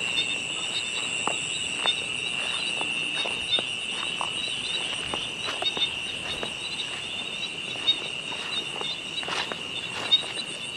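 Night chorus of insects in a rice field: a steady high-pitched trill with a faster pulsing call above it. Irregular light crackles and ticks of footsteps through dry grass on the field bank.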